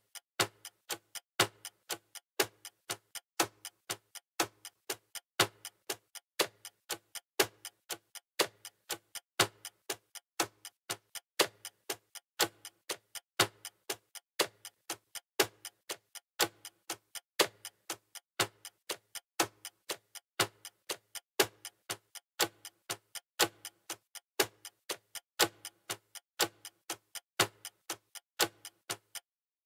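Clock-ticking sound effect, a steady tick-tock of about two ticks a second alternating louder and softer, marking a countdown timer.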